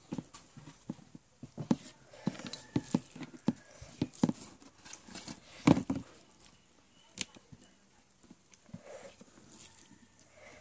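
Close-up eating sounds of someone chewing chicken: irregular wet smacks and crunches of the mouth, the loudest a little past halfway.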